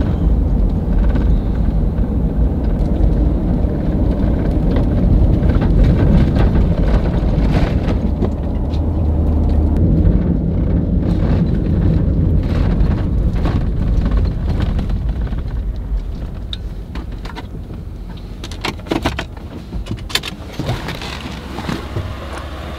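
Ford F-150 pickup driving, heard from inside the cab: a steady low rumble of engine and road noise. Over the last several seconds the rumble eases and scattered clicks and knocks come through.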